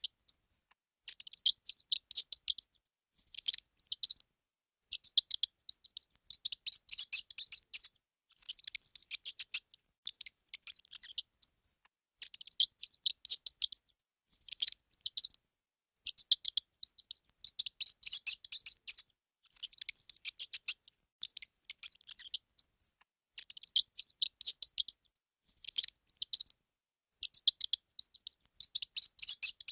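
Mouse squeaking: runs of rapid, high-pitched squeaks, each lasting about one to two seconds, with short pauses between them.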